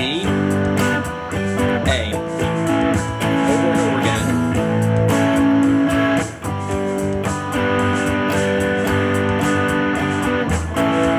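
Electric guitar, a Fender Stratocaster, played over a blues-rock backing-track loop that vamps between A and G chords in A Mixolydian. A few bent notes glide up in pitch in the first few seconds.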